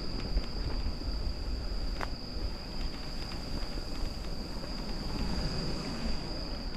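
Crickets trilling in one steady high-pitched note, over a low rumble and a few scattered clicks from riding on a trail.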